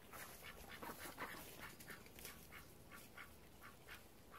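Ducks quacking softly and faintly in a quick series, about two or three calls a second.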